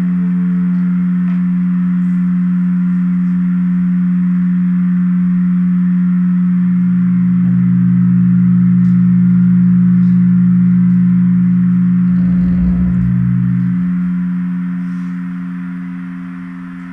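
Electroacoustic improvisation for percussion, cello and electronics: a steady drone of held pure tones that do not waver. A lower tone joins about six seconds in and drops out near fourteen seconds, with a brief low rumble just before, and the drone then fades.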